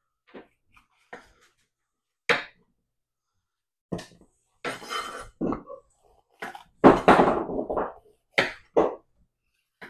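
Chef's knife slicing bell peppers on a wooden cutting board: separate knocks of the blade onto the board, then longer stretches of crunching and handling noise in the second half, the loudest about seven seconds in, and two more sharp knocks near the end.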